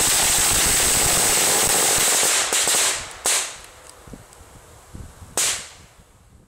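An 800-shot Thunderbomb firecracker string going off in a tube: a dense, rapid run of bangs for about two and a half seconds, then it thins out to a few last single bangs.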